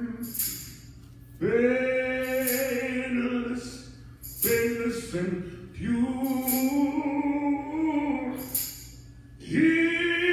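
A vocal trio singing into microphones through a church sound system, in phrases of a few seconds with long held notes and short pauses for breath between them.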